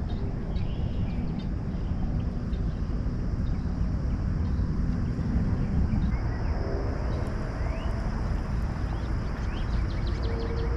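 Outdoor pond ambience: a steady low rumble, scattered short bird chirps and a high, steady insect drone. A steady hum comes in just before the end.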